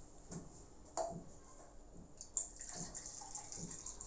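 Fresh grape juice being poured from a juicer jug into a glass: a faint liquid trickle with a few light knocks and clinks of the jug and glass.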